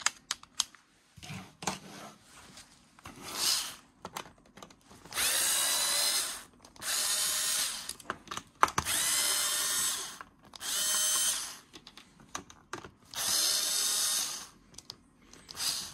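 Cordless electric screwdriver whirring in about five short runs of a second or so each, driving out small Torx screws; its owner feels the screwdriver is dying. A few light clicks and taps of handling come first.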